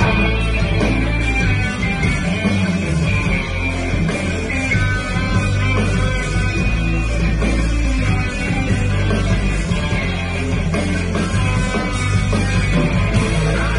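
Rock band playing live: electric guitars, bass guitar and drums in a steady full-band passage.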